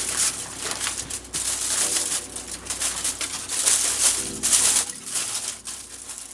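Paper being crumpled and handled by hand: an irregular crinkling rustle.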